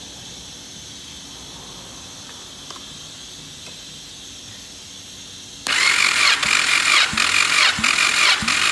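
Yamaha 1800 cc supercharged jet-ski engine being turned over by its electric starter for a compression test. The starter whirs in with a rhythmic chug about three times a second as the cylinders come up on compression, starting about two-thirds of the way through after a stretch of faint hiss.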